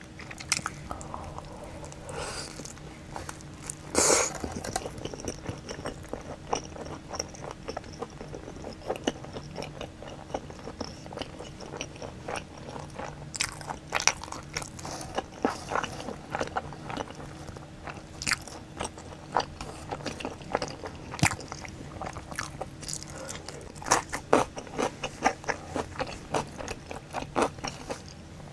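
Close-miked biting and chewing of a pizza slice: many short mouth clicks in an uneven run, with one louder bite about four seconds in.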